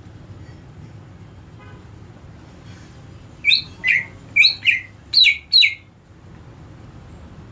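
Cucak ijo (green leafbird) calling: six sharp, quickly falling chirps in three close pairs, about halfway in, over a steady low background hum.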